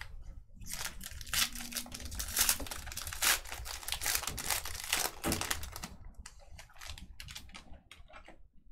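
Crinkling, rustling and tearing of card packaging as trading cards are unwrapped and handled, dense for about the first six seconds, then thinning to scattered light clicks.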